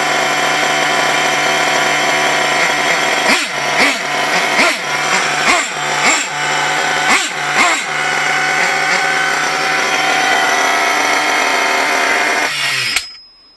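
Small nitro glow-plug engine (4.1) of an HPI Lightning 2 RC monster truck running fast and steady. Its revs dip and pick up again about seven times in quick succession, then it stops suddenly near the end.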